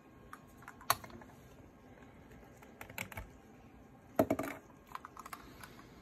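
Scattered light clicks and taps from handling objects and the camcorder, with a short cluster of louder knocks about four seconds in.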